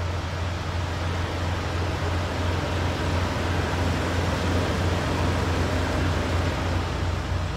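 Semi truck's diesel engine idling, a steady low hum with an even fan-like hiss over it, heard from inside the cab.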